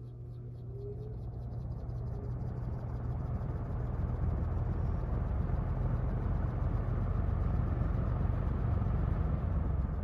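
1960s Sears-Kenmore box fan with a 'fireball' motor running: a steady low motor hum under the rush of air from the blades. The sound grows louder over the first few seconds, then holds steady.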